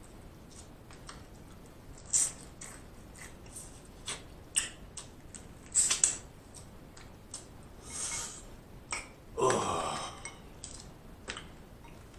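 Close-up mouth sounds of a person eating snow crab legs: wet smacks, sucking and small clicks as the meat is pulled from the shells. About three-quarters of the way through comes a burp, the loudest sound.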